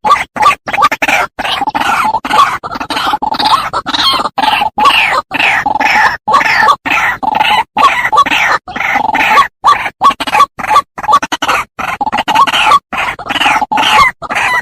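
White-breasted waterhen calling: a dense, loud run of repeated notes, about three a second, broken by brief silent gaps, from a looped recording used as a bird-trapping lure.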